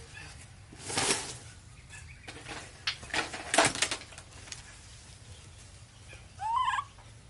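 A few short bursts of rustling and handling noise, then near the end a baby monkey gives one short rising call.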